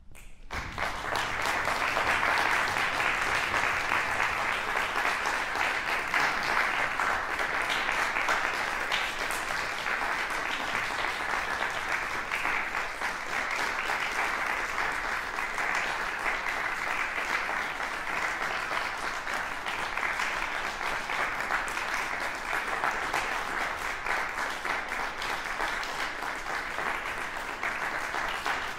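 Audience applauding, breaking out suddenly as the last chord of choir and brass dies away and then holding steady.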